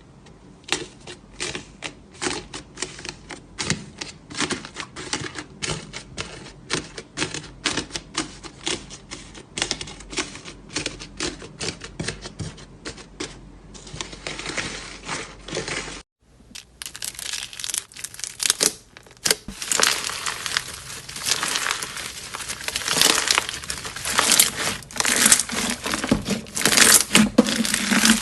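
Slime being pressed and squeezed by hand, giving a fast, uneven run of sharp clicks and pops. After a cut about 16 s in, the crackling grows denser and louder.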